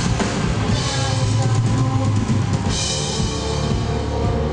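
Live rock band playing loud: drum kit with bass drum, snare and cymbal crashes over electric bass and electric guitar. The cymbals come in about a second in and again near three seconds.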